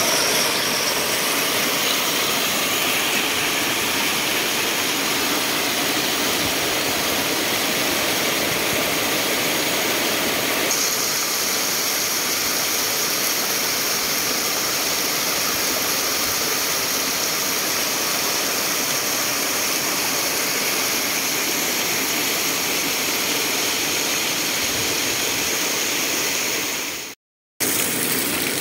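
Water rushing and splashing over rocks in a steady, loud cascade. It cuts out for a moment near the end.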